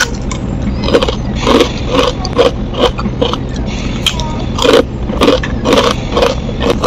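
A person biting and chewing crisp fried food close to the microphone: irregular crunches several times a second with wet mouth sounds between them, over a low steady hum.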